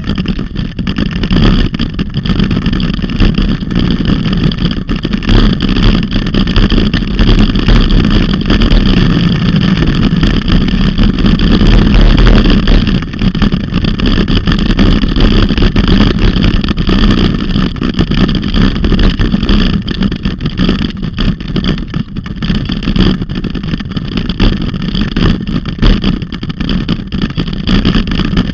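Loud steady rush of wind buffeting the microphone of a camera on a dog-drawn rig moving fast along a dirt trail, with the rumble of its wheels rolling over the ground.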